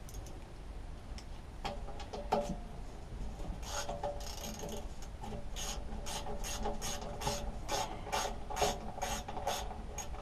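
Hand ratchet clicking in a steady run, about three clicks a second, starting about four seconds in, with a few loose tool-handling clicks before it. The ratchet is undoing the fixings of a lawnmower engine's fuel tank.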